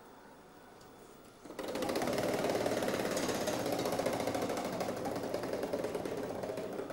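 Game-show prize wheel spinning, its rim pegs clacking fast against the pointer flapper. The clicking starts suddenly about a second and a half in and fades a little towards the end.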